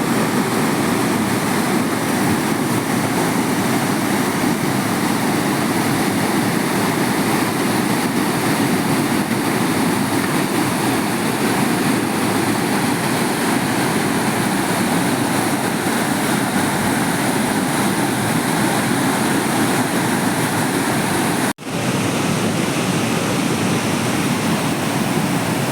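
Waterfall pouring: a loud, steady rush of falling water, broken once by a split-second dropout near the end.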